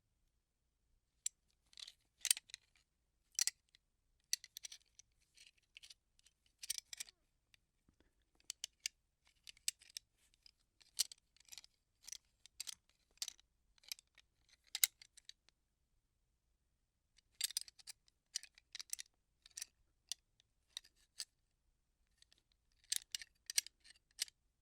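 Gun parts being handled: sharp, light clicks and rattles of small parts in irregular clusters, with short pauses between them.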